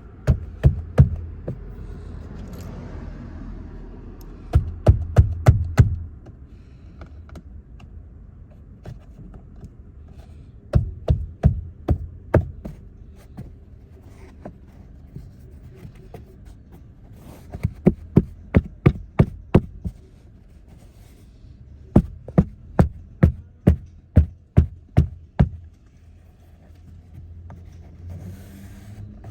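Ratchet wrench clicking in several bursts, about four sharp clicks a second, as the seatbelt retractor's mounting bolt is run in and tightened.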